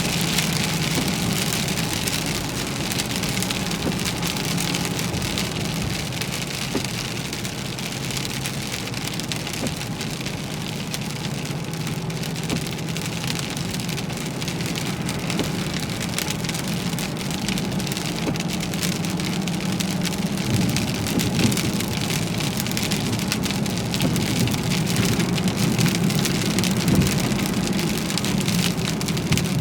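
Heavy rain pelting a moving car, a dense patter of drops over a steady low drone from the road and engine.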